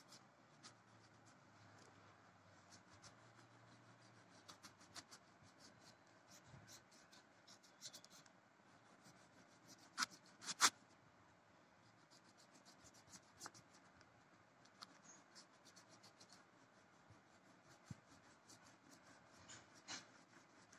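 Faint scratching of a wax crayon rubbed back and forth on paper as yellow is layered over brown crayon, with a couple of sharper ticks about ten seconds in.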